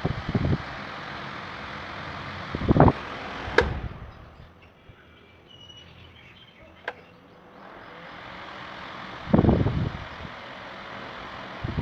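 Usha Mist Air Flo table fan blowing with a steady rush of air, switched off with a click about three and a half seconds in so the airflow dies away, then clicked back on a few seconds later so the rush builds up again. Several low thumps of air buffeting the microphone.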